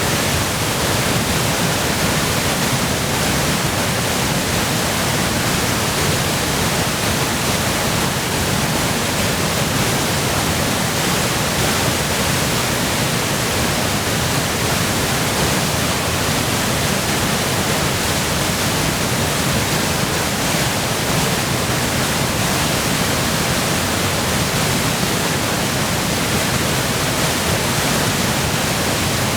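Waterfall in high flow from spring melt and heavy rain, its water falling with a steady, loud rush.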